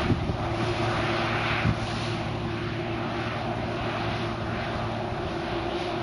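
Claas Medion 340 combine harvester running under load as it cuts and threshes wheat: a steady drone of engine and threshing machinery. Two brief thumps sound in the first two seconds.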